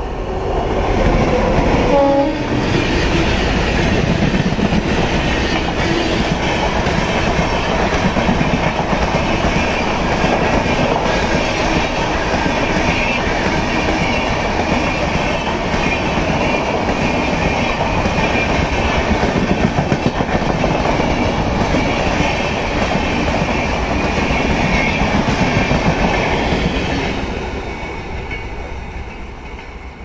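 WAP7 electric locomotive and its red passenger coaches passing at speed, a loud steady rumble of wheels on rail with clickety-clack over the rail joints. A short falling tone sounds about two seconds in as the locomotive goes by, and the noise fades near the end as the train draws away.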